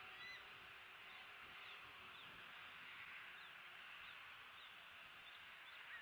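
Faint outdoor ambience: a steady high hiss with short, faint bird chirps scattered through it, and one slightly louder chirp near the end.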